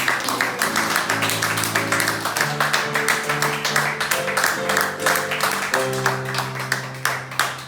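Instrumental music with held chords that change about every second, over dense clapping; the music drops away right at the end.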